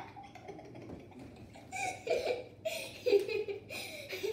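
Children laughing in several short bursts, starting a little under two seconds in.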